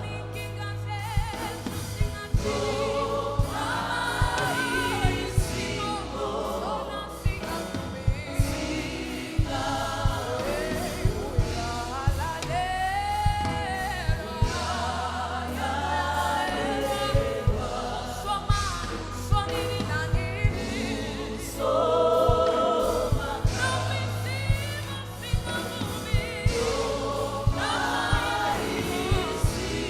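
Gospel choir singing with a steady bass line and sharp percussive hits keeping the beat.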